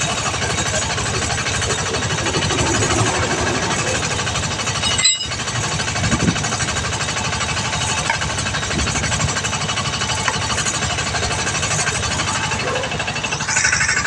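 Eicher Pro 2059 truck's diesel engine running steadily with a rapid, even clatter, supplying air through a hose that is inflating the truck tyre. The sound breaks off briefly about five seconds in.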